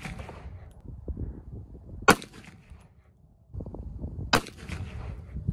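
Kel-Tec PMR-30 .22 Magnum semi-auto pistol fired twice, about two seconds apart, each shot trailing off in a short echo.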